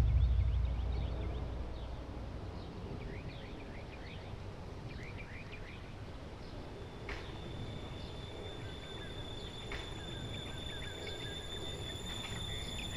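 Outdoor ambience of small birds chirping over a low rumble, as a deep boom fades out over the first two seconds. A thin steady high tone comes in about halfway.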